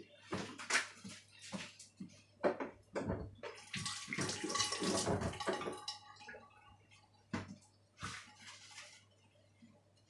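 Running water splashing: a few irregular splashes, then a steady run of about two seconds in the middle, and a couple more splashes near the end.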